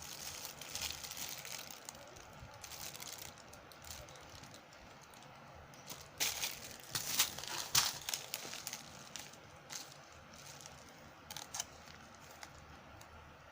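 Packaging crinkling and rustling as it is handled and opened, with a louder flurry of crinkles about six to eight seconds in.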